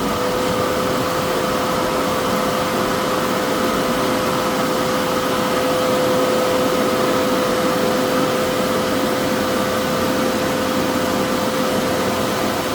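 Inflatable blower running steadily at full speed, blowing air into an inflatable through its blower tube: a steady whine over rushing air.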